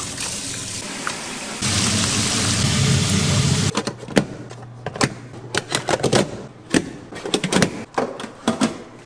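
Food-preparation sounds: a steady rushing hiss that grows louder about one and a half seconds in and stops suddenly near the four-second mark, followed by a run of irregular sharp clicks and clatters.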